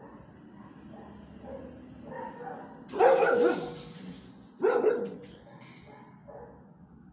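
A dog barking: two loud barks, the first about three seconds in and the second a second and a half later, with fainter barking before and after.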